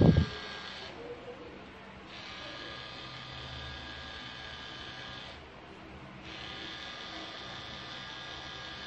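Pen-style rotary tattoo machine buzzing steadily as it works ink into skin, its sound thinning out twice for about a second.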